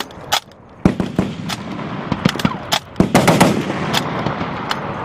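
Machine-gun fire on a range: separate shots and short bursts at uneven intervals, with a rapid burst of several rounds about three seconds in.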